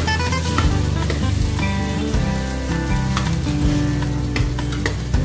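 Pieces of pork sizzling in hot oil in a stainless steel pot while a metal spoon stirs them, with light background music under it.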